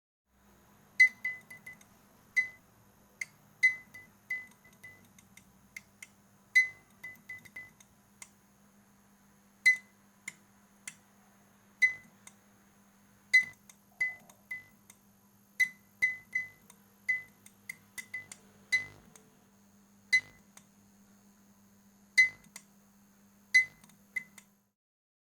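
Faulty fluorescent lamp clicking irregularly, single clicks and quick clusters of sharp ticks, over a low steady hum.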